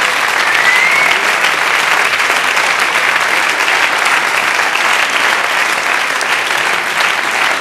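Theatre audience applauding steadily, with a short rising tone heard about half a second in.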